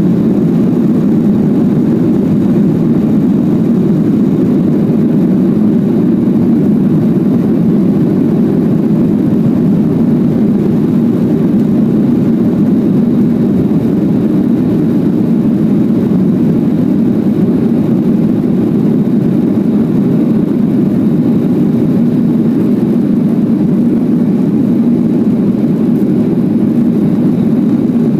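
Steady, low cabin noise inside a Boeing 737-800 climbing after takeoff: its CFM56-7B jet engines at climb power and the rush of air past the fuselage, heard from a window seat over the wing.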